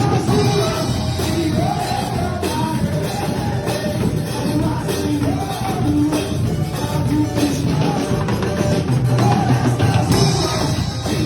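Band playing a Brazilian Pentecostal 'corinho de fogo' worship chorus, with singing over drums.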